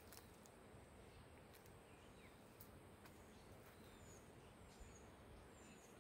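Near silence: faint outdoor ambience with a few faint, brief high bird chirps scattered through it.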